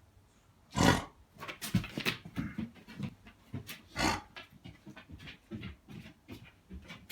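A dog coughing: two loud, hard coughs, about a second in and again about four seconds in, with short rapid sounds between and after them. The cough is a sign of fluid in the lungs (pulmonary edema) from heart failure caused by dilated cardiomyopathy, not of infection.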